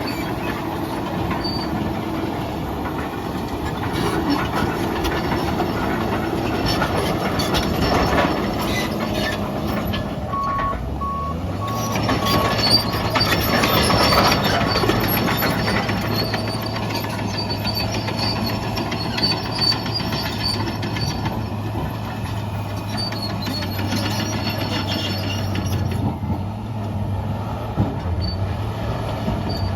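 Case 2050M XLT crawler dozer's diesel engine working under load as it pushes dirt, rock and concrete, with the steel tracks clattering; the engine holds its speed as it pushes. Its engine note rises about eleven seconds in and stays there, and a few short beeps come around the same time.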